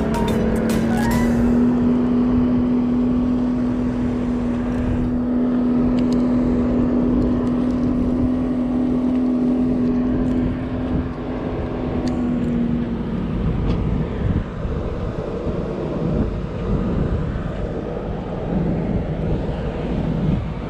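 A motor vehicle running, with a heavy low rumble and a steady hum that stops about two-thirds of the way through.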